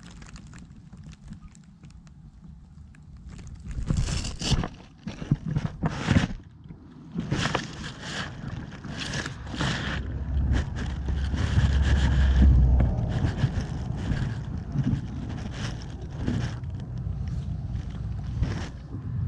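Long grass brushing and rustling against the microphone, with low wind rumble, in uneven bursts that start about four seconds in and peak in a heavy rumble near the middle.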